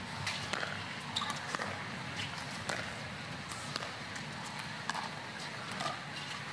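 Pickleball rally: sharp pops of paddles striking the hollow plastic ball, irregularly about every half second to second, over a steady murmur from the stadium crowd.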